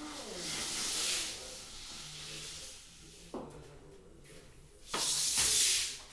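Two bursts of hissing, the second louder and longer near the end, with a single sharp click between them.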